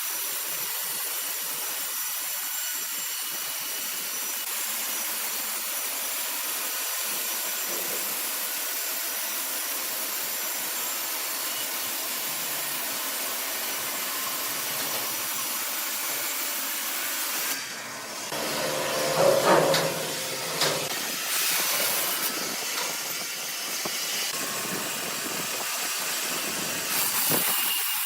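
Sawmill saw cutting through a log, a steady high hissing whine. About two-thirds of the way in it turns louder and rougher, with a few sharp knocks, then settles again.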